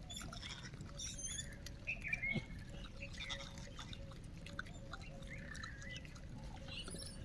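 Birds chirping: a few short, high calls, one about a second in and others around the middle and later, over scattered soft clicks and rustles.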